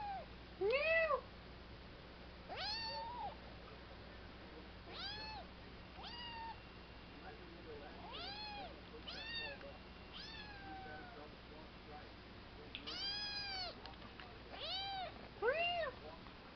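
A three-month-old kitten meowing over and over, about a dozen short calls that each rise and fall in pitch, with a short pause past the middle.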